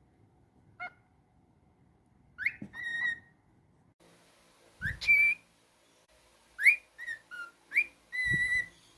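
A pet cockatiel whistling a tune: a short chirp, then several whistled phrases, each sliding up into a clear held note, the last note held longest near the end.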